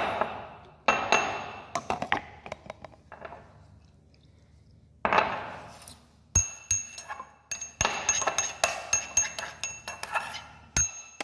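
Ceramic pestle clinking and scraping against a ceramic mortar: irregular sharp clinks with a short ringing tone, in a few scattered strikes at first and then in a dense run through the second half.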